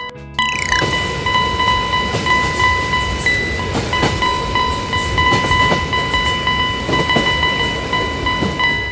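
Train sound effect: a noisy rumble with a rapid clickety-clack of about three beats a second, under a steady high tone that holds throughout. A quick falling sweep comes near the start.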